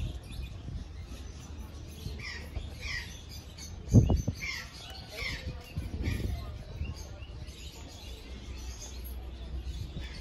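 Small birds chirping in a run of short, quick chirps through the middle of the clip, over a steady low background rumble. A sudden loud low thump about 4 seconds in.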